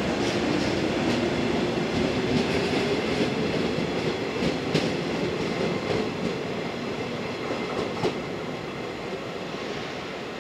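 JR West 115-series electric train (set D13) running past and away down the line, its motors humming steadily and its wheels clicking over rail joints. The sound slowly fades as it goes.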